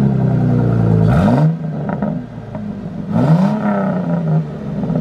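Ford Mustang V6 engine running through a very long makeshift exhaust pipe lying on the ground, blipped twice: each rev rises quickly and drops back toward idle, about a second in and again about three seconds in.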